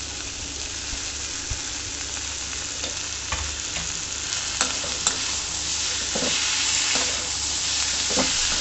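Chopped tomatoes and onions frying in a little oil in a pan, sizzling steadily while being stirred, with a few taps and scrapes of the spoon against the pan. The sizzle grows a little louder about halfway through.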